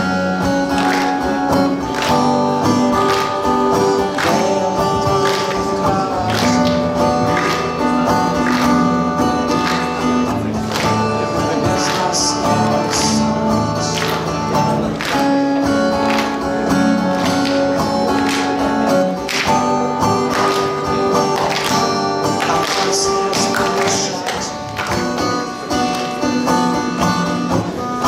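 A live acoustic song: a strummed acoustic guitar accompanying a male singer.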